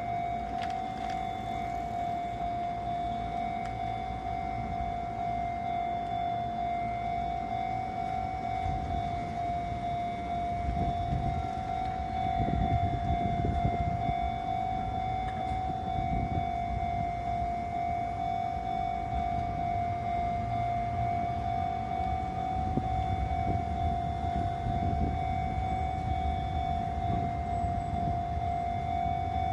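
Sotetsu level crossing warning alarm sounding one steady electronic tone throughout, with a train rumbling past from about a third of the way in and again near the end.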